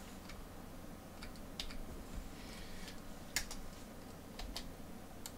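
Computer keyboard being typed on: a few irregular keystroke clicks as a word is entered.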